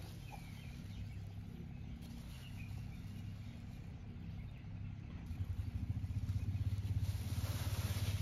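A low motor engine hum that grows louder and pulses rapidly from about five seconds in, with a few faint bird chirps.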